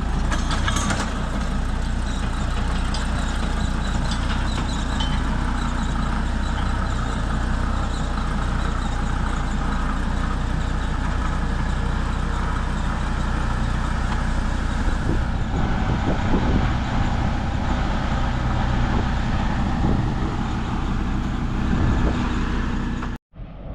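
Engine of a heavy vehicle running steadily under way, a continuous low hum; the sound cuts off abruptly for a moment near the end.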